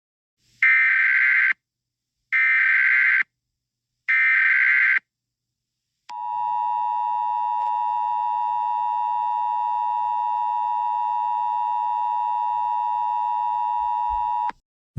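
Emergency Alert System alert opening: three short bursts of screeching digital data (the SAME header), then the steady two-tone EAS attention signal held for about eight seconds, announcing an emergency alert.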